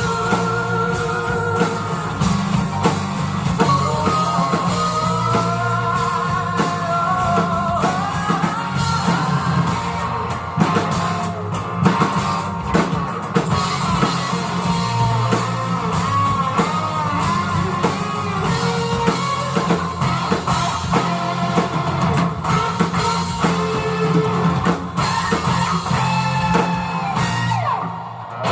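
Live band playing the song's closing section with guitar and drum kit under a wavering lead melody, without sung words, with a short dip near the end.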